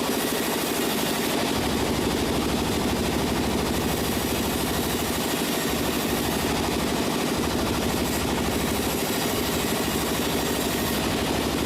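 Sawmill machinery running steadily with a fast, even rattling pulse.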